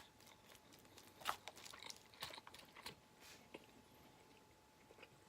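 A person eating, faint close-up chewing with a few soft wet mouth clicks and smacks, the clearest about a second and two seconds in.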